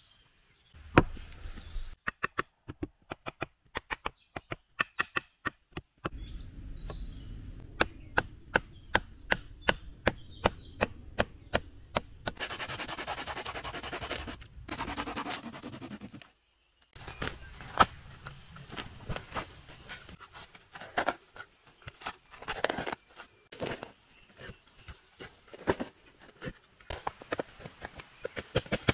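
Hand work on wood: a run of sharp chopping or knocking strikes, at times a steady two a second, with a couple of seconds of rasping rubbing about halfway through.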